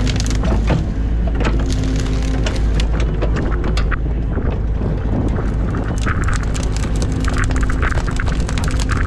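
New Holland Kobelco E50.2 mini excavator's diesel engine running steadily under hydraulic load while its bucket rakes through a pile of dry brush, with many sharp cracks and snaps of breaking branches. In the second half, rapid high squeaks come in bursts.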